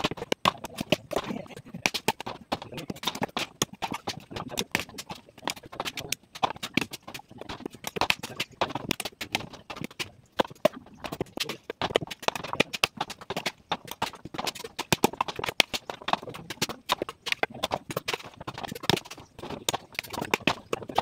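Bolo knives chopping into husked coconuts, splitting them open for copra: an uneven, unbroken run of sharp knocks, several a second, from more than one worker.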